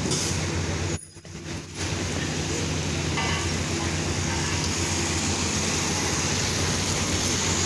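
Steady hiss of pouring rain over a low rumble. The sound drops out briefly about a second in.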